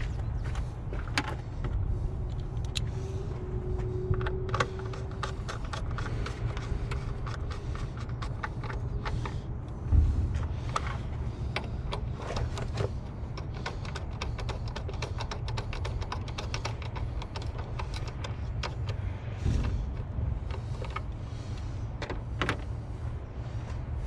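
Small clicks and taps of a screwdriver and plastic parts as a BMW 630i's air box is refitted and its screws tightened, over a steady low rumble. There is one louder thump about ten seconds in.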